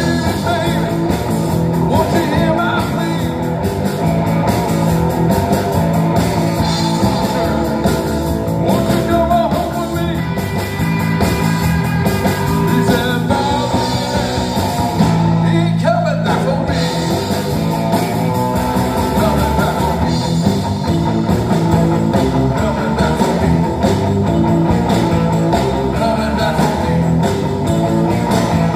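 Three-piece rock band playing live: electric guitar, bass guitar and drum kit.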